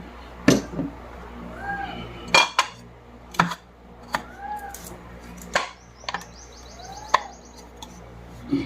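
Light hammer taps, metal on metal, about eight sharp knocks at uneven spacing, as a ring is tapped gently into a ceiling fan's thin aluminium body during a bearing replacement. A faint short rising-and-falling chirp recurs every couple of seconds behind the taps.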